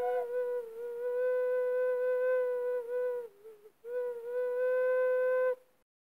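Flute playing long, held notes with slight dips in pitch. It falls almost silent about three seconds in, then takes up the note again and stops suddenly just before the end.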